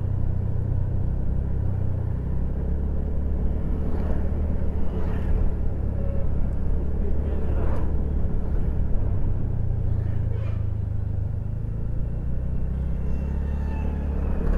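Vehicle driving along a road: a steady low rumble of engine and road noise.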